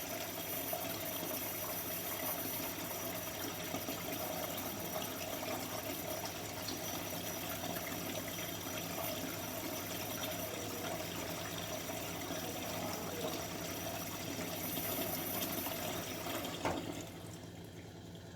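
Water rushing through a Candy Formula Inox washing machine, a steady flow with a faint hum, that stops abruptly with a click about seventeen seconds in.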